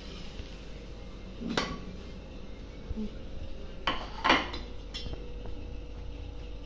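Metal spatula scraping and clinking on a tawa griddle as a cooked paratha is lifted off and set on a plate. There are a few separate clinks and scrapes, one about a second and a half in and a cluster around four to five seconds, over a steady low hum.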